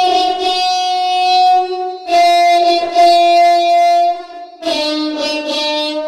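Background music: a slow melody of long held notes, each lasting about two seconds.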